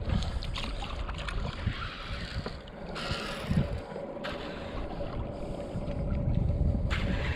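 Boat on the water, with wind buffeting the microphone and water washing, over a faint steady hum.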